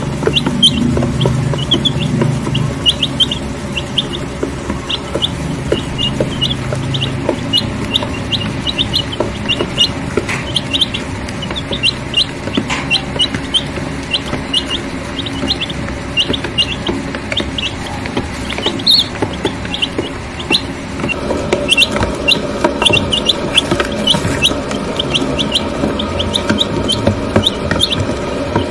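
A brood of week-old White Leghorn chicks peeping: many short, high peeps, several a second, growing busier toward the end.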